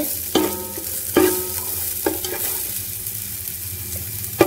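Sliced onions sizzling as they fry in ghee in a pan. A stirring utensil knocks and scrapes against the pan four times, and the loudest knock comes near the end.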